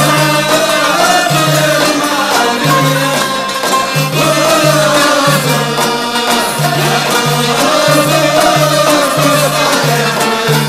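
Uyghur folk song from a medley: a sung melody over a steady, evenly pulsing bass line.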